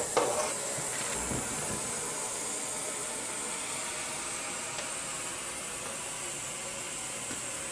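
Steady hiss of gas flowing through the hoses into a U-2 pilot's full pressure suit and helmet, with a few short knocks of hands and fittings at the very start.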